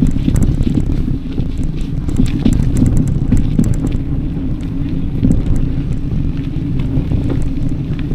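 Wind buffeting the microphone of an action camera on a moving bicycle: a steady loud rumble, with frequent small clicks and rattles.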